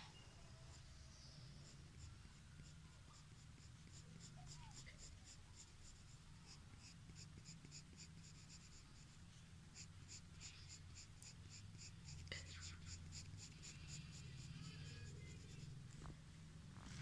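Coloured pencil scratching on paper in quick back-and-forth shading strokes, about three a second, faint, with a steady low hum underneath.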